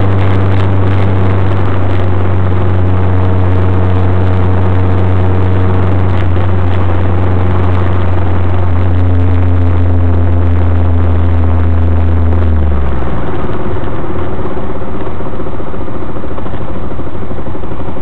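Triumph Spitfire's four-cylinder engine droning at a steady speed while driving, under a steady rush of wind and road noise. About 13 seconds in the steady engine drone drops away, leaving the wind and road rush.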